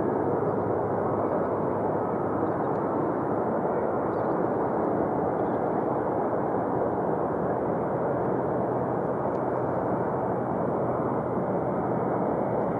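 Steady noise of a Boeing 777 airliner's twin jet engines as it lands and rolls out down the runway, even in level throughout.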